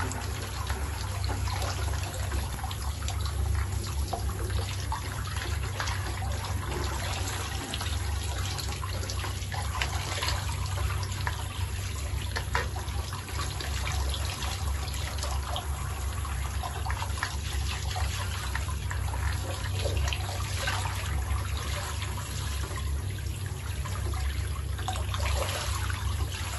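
Handheld shower head running, its spray hissing steadily onto a wet cat's fur and splashing into a plastic basin, with a steady low hum underneath.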